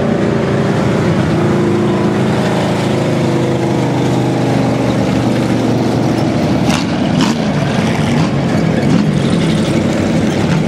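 Several hobby stock race cars' engines running at racing speed around a dirt oval, rising and falling in pitch as the cars rev through the turn and pass close by. Two sharp cracks come a little past halfway.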